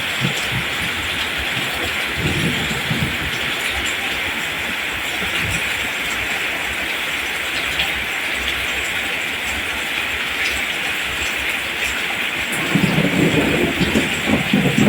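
Steady rain falling on rice plants, an even hiss. Low rumbling swells come in about two seconds in and again over the last few seconds.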